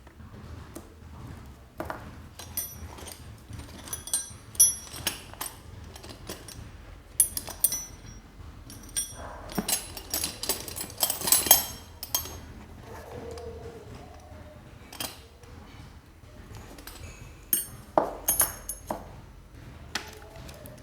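Metal hand tools clinking and clattering: sharp, ringing metal-on-metal knocks in irregular clusters, busiest in the middle and again near the end, over a low steady hum.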